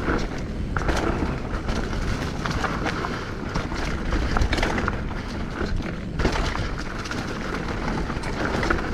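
Hardtail mountain bike rolling down dirt singletrack: tyres rumbling over the ground and the bike rattling, with frequent sharp clicks and knocks as it rides over rough spots.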